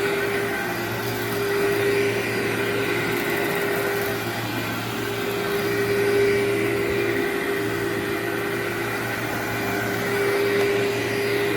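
Workhorse vacuum cleaner running steadily on berber carpet, a constant motor whine whose loudness swells and eases a little every few seconds.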